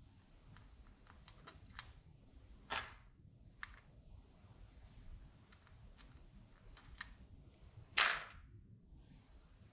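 Faint small clicks and taps of plastic LEDs being nudged into place in a black acrylic alignment guide on a circuit board, with a louder brief scrape about eight seconds in.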